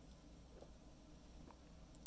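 Near silence, with a few faint small ticks from metal tweezers lifting a pin out of a lock plug.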